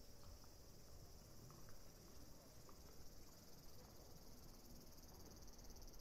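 Faint, steady high-pitched insect chorus, a fast pulsing trill.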